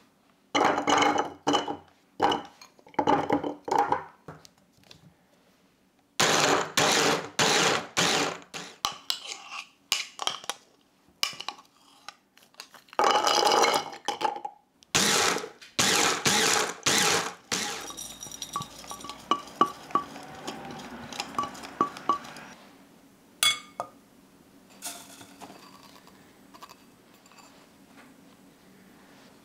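Repeated short bursts of hard clattering as walnuts are poured into and rattle in a plastic mini food-chopper bowl, then quieter ticks and rustling as dry ingredients are sifted through a mesh sieve near the end.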